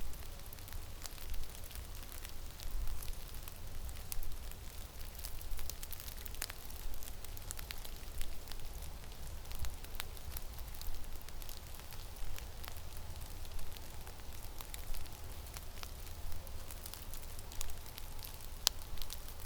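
Blizzard wind in a winter forest, rumbling low on the microphone, with scattered sharp ticks and crackles throughout.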